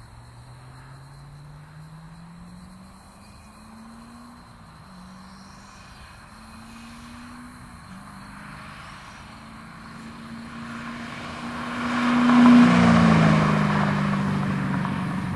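C6 Corvette Z06's 7.0-litre LS7 V8 through a B&B Bullet aftermarket exhaust, accelerating toward and past. The engine note climbs and dips twice as it shifts up, grows louder to a peak about twelve seconds in as the car goes by, then falls in pitch as it pulls away.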